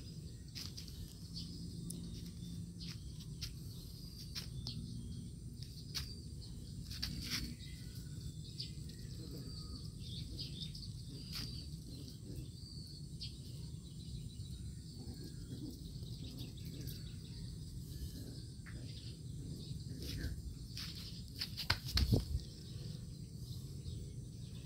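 Outdoor garden ambience: a steady high insect drone with faint bird chirps over a low rumble, broken by scattered short clicks and a louder knock near the end.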